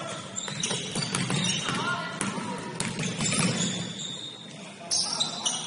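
Basketball game in play on a gym court: the ball bouncing in a string of sharp knocks, short high sneaker squeaks, and players' voices calling in the hall.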